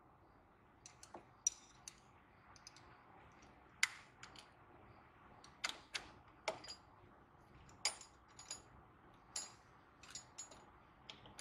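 Light, irregular metal clicks and taps of hand tools working a bolt on a throttle bracket: a long T-handle hex wrench is set into the bolt head and turned, with a dozen or so sharp clicks at uneven intervals.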